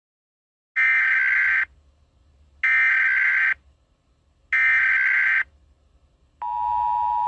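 Emergency Alert System SAME header: three bursts of digital data tones, each just under a second long and about a second apart, followed a little over six seconds in by the steady EAS two-tone attention signal.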